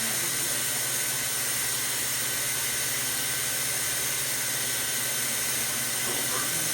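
Steady hiss of a hot-air plastic welding gun blowing while PVDF plastic is welded, with a faint low hum beneath and no breaks.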